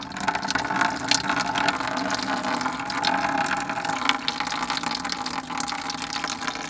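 Hot engine coolant from the Prius's coolant heat storage (CHS) tank circuit gushing out and splashing steadily below; it starts suddenly and keeps running.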